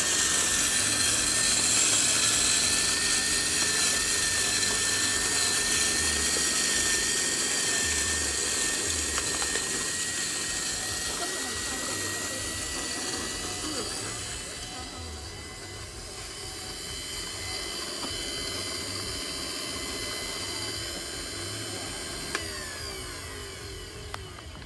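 Electric coffee grinder running, grinding roasted coffee beans: a steady motor whine, a little quieter about two-thirds through and easing off near the end.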